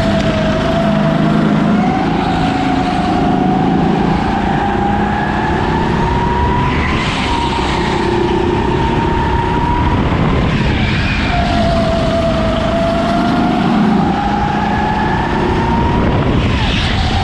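Racing kart engine under full throttle, its pitch climbing slowly as it gathers speed. The pitch drops sharply when the throttle is lifted for a corner, once about ten seconds in and again near the end, then climbs again.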